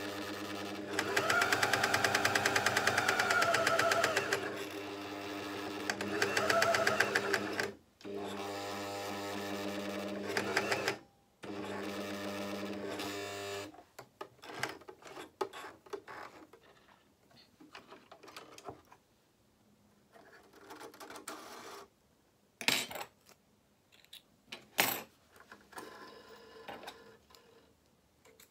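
Juki MCS-1500N coverstitch machine stitching a hem in four runs, its motor speeding up and slowing, with brief stops between. It stops about fourteen seconds in, and what follows is light clicking and handling noise with a few sharp ticks.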